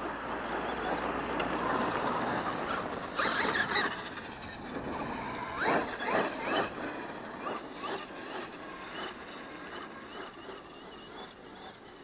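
Traxxas X-Maxx RC monster truck with a Hobbywing MAX6 ESC running, its electric motor whining as it revs up and down over a hiss of tyre and wind noise. The whine rises sharply twice, around three and six seconds in, then the sound fades.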